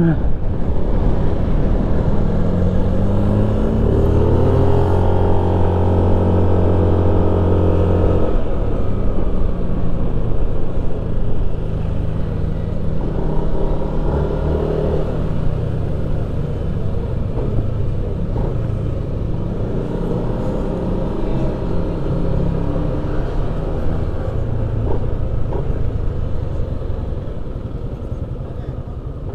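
Motorcycle engine on a track ride: the revs climb for a few seconds, hold high, then cut off sharply about eight seconds in. After that, lower engine noise mixed with rushing air runs on and slowly fades.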